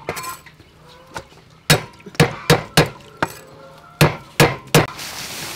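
Steel cleaver chopping on a thick round wooden chopping block: sharp chops in two quick runs, four in the middle and three near the end. A short rasping scrape follows as the blade is drawn flat across the board.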